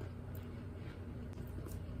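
Faint chewing of baked cornstarch, soft clicks about twice a second, over a steady low hum.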